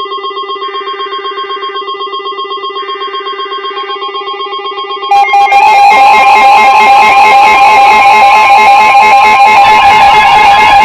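Weather alert radios going off for a new warning. A fast-pulsing alarm tone starts at once over the NOAA Weather Radio SAME header's short screechy data bursts, which come about a second apart. About five seconds in, a louder, harsher blend of alarm tones joins and carries on steadily.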